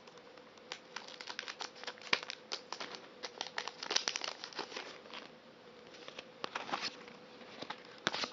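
Foil wrapper of a Japanese Pokémon TCG booster pack crinkling in irregular crackles and clicks as it is handled, with a faint steady hum underneath.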